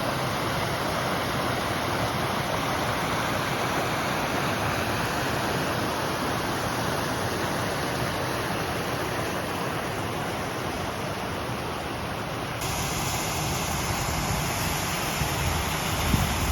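Rushing water, such as a waterfall or fast stream, making a loud, steady rushing noise.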